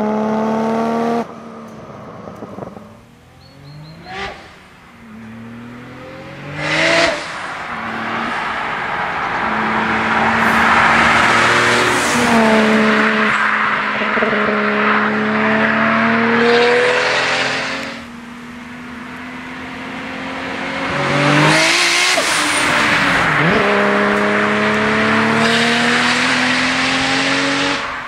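Nissan Skyline R33 GT-R's twin-turbo straight-six accelerating hard through the gears, its pitch climbing in each gear and dropping at each shift. About three quarters through, the car passes close by and its pitch falls as it goes past.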